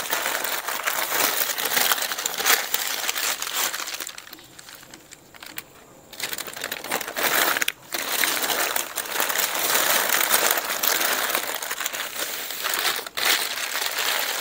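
Newspaper crinkling and crumpling as it is folded and wrapped by hand around bananas. It eases off for a couple of seconds about four seconds in, then starts again.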